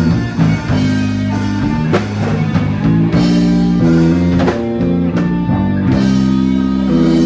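Live band playing rock music: guitars strumming sustained chords over a drum kit keeping a steady beat.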